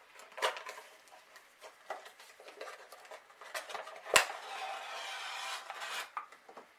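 A HeroClix booster pack being opened by hand: plastic packaging crinkling and rustling, with small plastic figures clicking together. One sharp click about four seconds in is the loudest, followed by a couple of seconds of steadier crinkling.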